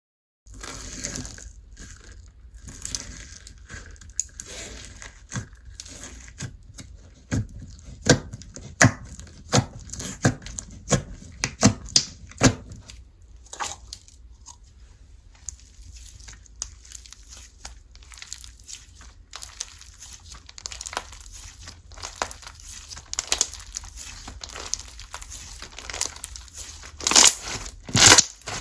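Hands squeezing, stretching and poking slime: a sticky crackle with many sharp pops and clicks. The pops come thickest and loudest in a run about a third of the way in and again near the end.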